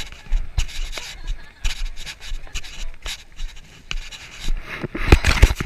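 Walking footsteps, about two a second, with clothing or a hand rubbing and scratching against the microphone; a louder burst of rubbing comes about five seconds in.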